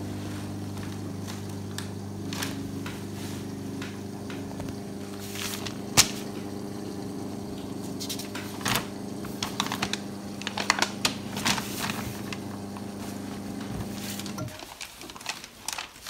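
Electriq tabletop dishwasher's water inlet valve humming steadily as it fills the machine with water, then cutting off about fourteen seconds in. Scattered clicks sound over the hum, a sharp one about six seconds in.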